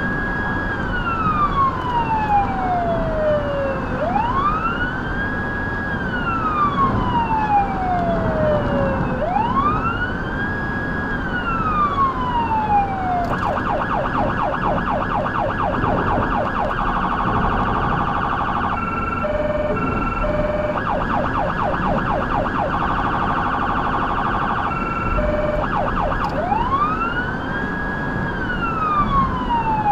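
Federal Signal Touchmaster Delta electronic siren through the vehicle's speakers, sounding a slow wail that rises, holds briefly at the top and falls again about every four to five seconds. About thirteen seconds in it switches to a fast yelp, broken by a short stretch of alternating high and low steady tones, then returns to the wail near the end.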